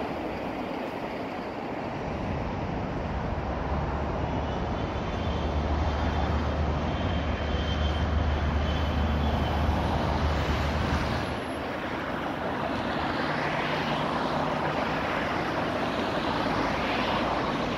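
Steady outdoor roar of freeway traffic. A deeper rumble and a faint high whine swell in the middle and drop away about eleven seconds in.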